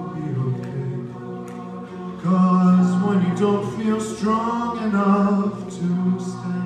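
A cappella vocal group singing: a male lead voice over the group's sustained backing harmonies, no instruments, growing louder about two seconds in.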